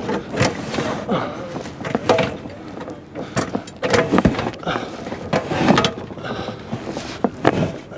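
Irregular knocks, clanks and scrapes of a man climbing an aluminium extension ladder with a large cardboard-boxed rooftop air conditioner: feet on the rungs, the ladder shifting, and the box bumping and rubbing against the side of the van.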